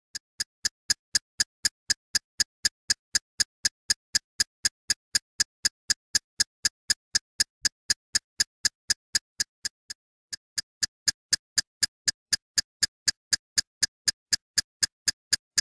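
Ticking sound effect: sharp, evenly spaced ticks about four a second, with a short break about ten seconds in.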